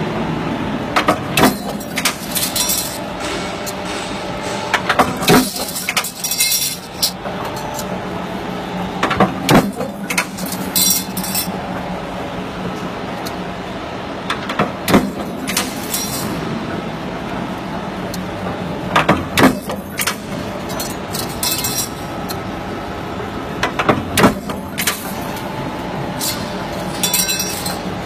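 A 40-ton mechanical power press (J23 type) running with a steady motor-and-flywheel hum. Sharp metallic strikes come every few seconds, often in pairs, as the press punches and forms sheet-metal duct corner pieces, mixed with clinks of the sheet metal being handled.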